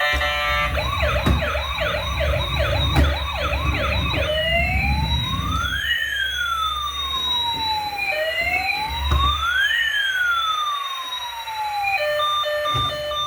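Electronic siren from a toy emergency vehicle's sound module: a fast yelping up-and-down siren for about three seconds, then a slow rising-and-falling wail in two crossing tones, twice. Near the end it switches to a rapid, steady beeping, with a low rumble underneath through the first half.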